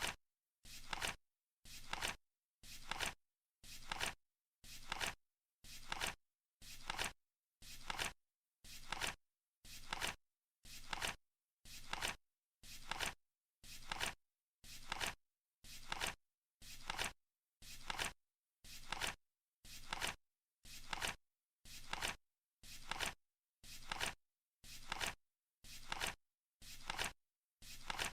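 Flip clock sound effect: a short flap-and-click of a flipping card once every second, steady and evenly spaced, with silence between the ticks, counting down the seconds.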